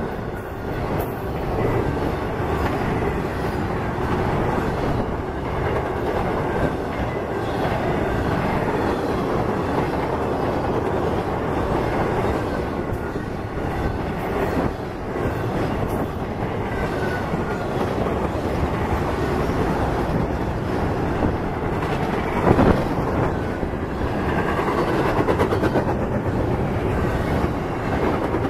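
Intermodal freight train cars rolling past close by: a steady rumble of steel wheels on the rails with clickety-clack from the wheels crossing rail joints, and one louder knock about three-quarters of the way through.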